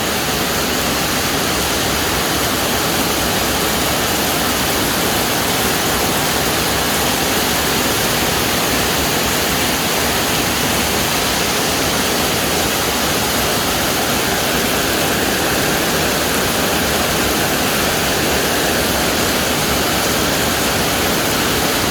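Steady, loud rushing of water in a typhoon storm, an even hiss that does not let up.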